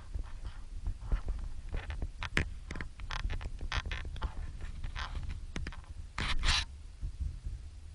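A glazed porcelain floor tile being cut by hand along a curve: a run of short, irregular scrapes and clicks, with a longer, louder scrape about six seconds in, over a low steady rumble.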